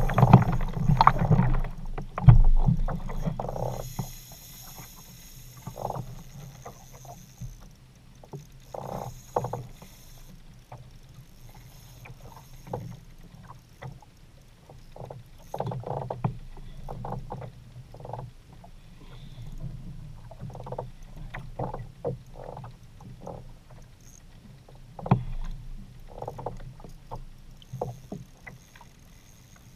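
Water slapping and splashing against a plastic kayak hull in irregular bursts and knocks, loudest in the first few seconds, while a fish is reeled in on a bent rod.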